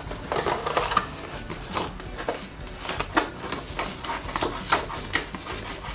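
Handling noises: a sheet of card rustling as it is wrapped around an empty plastic milk bottle, with sheets of paper shuffled and irregular small taps and knocks.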